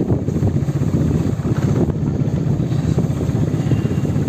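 Motorbike engine running steadily while being ridden, a continuous low rumble with a fast even pulse.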